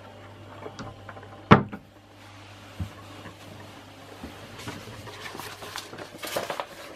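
A wooden cupboard door swung shut with one sharp knock about a second and a half in, followed by a few faint knocks and rustling, over a low steady hum.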